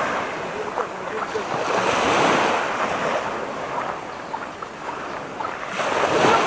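Small waves washing onto a sandy beach, the surf swelling about two seconds in and again near the end.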